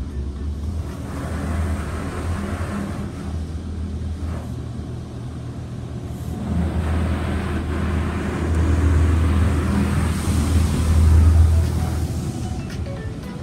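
Touchless car wash's high-pressure spray hitting the car, heard from inside the cabin: a steady low rumble with a hiss of water that swells as the spray arm passes, twice, loudest near the end.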